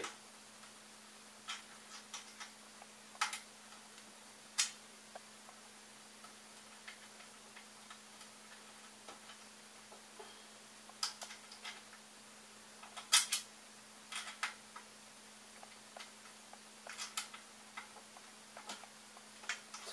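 Scattered small clicks and taps from hands working with small parts and wires on a 3D printer's frame, at irregular intervals. A faint steady low hum runs underneath.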